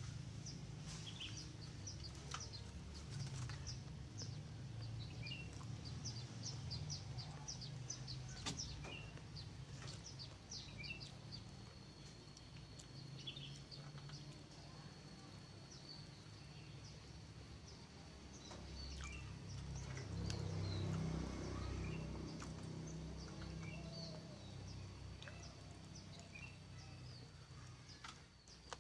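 Small birds chirping in quick, repeated short calls, fading after the first third, while a thin steady high tone sets in and holds. Underneath runs a low background rumble that grows louder for a couple of seconds past the middle.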